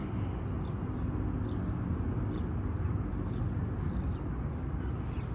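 Steady low rumble of outdoor background noise, with short high chirps from small birds scattered throughout.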